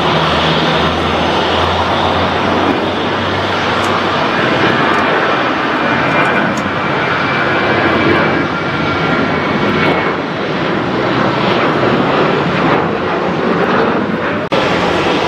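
Boeing 737 jet airliner's turbofan engines at takeoff power as it lifts off and climbs away: a loud, steady jet noise with a faint high whine that fades out about two-thirds of the way through. The sound dips sharply for a moment near the end.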